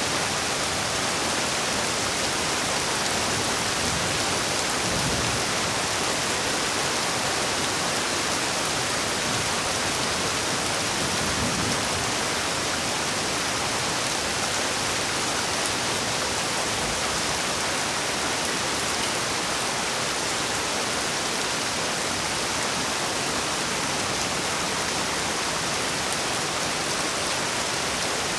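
Heavy rain falling steadily, a dense, even hiss of rain on surfaces that holds the same level throughout.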